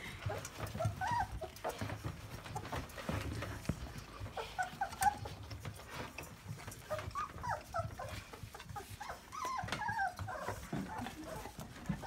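A litter of 24-day-old Labrador Retriever puppies squeaking and whimpering: many short, high squeaks scattered throughout, over soft knocks and scuffling as the puppies move about.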